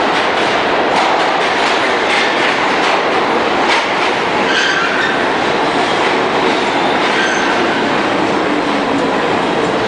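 A New York City subway train running along the track, a loud steady rumble with wheels clacking over rail joints a few times early on and brief faint wheel squeals about halfway through and again later.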